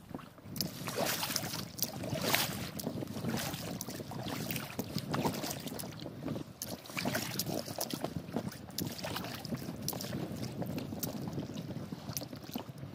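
Inflatable rubber dinghy being rowed: water splashing and lapping against the rubber hull, with irregular knocks and splashes from the oars and wind on the microphone.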